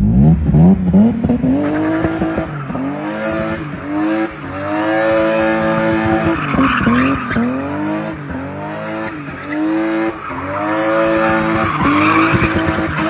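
BMW E36 M3's straight-six engine revving hard while the car drifts. The revs climb and drop over and over with the throttle, with tyre squeal about halfway through and again near the end.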